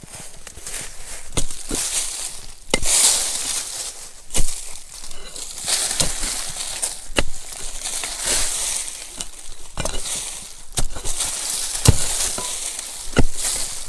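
Pickaxe striking stony hillside soil in repeated blows, about one every second or so, with dry earth and dead vegetation crunching and crackling between strokes as roots are dug out.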